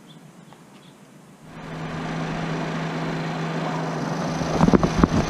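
Audi A4 engine starting about a second and a half in and settling into a steady idle, the first run on freshly changed synthetic oil to check for oil pressure and leaks. A few loud thumps come near the end.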